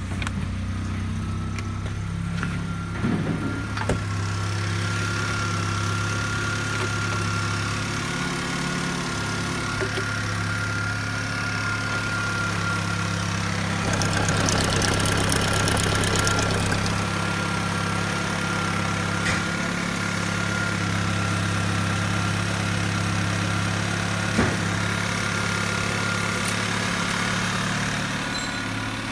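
Fiat Tempra 1.4 single-point-injection four-cylinder petrol engine (code 160A1.046) idling steadily, with a thin steady whine above the engine note. About halfway through, a brief rush of hiss comes in over it.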